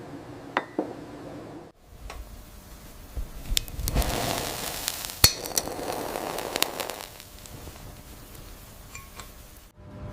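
Light glass clinks and taps, with a stretch of scraping hiss in the middle and one sharp click, as a blown glass ornament is separated from its blowpipe.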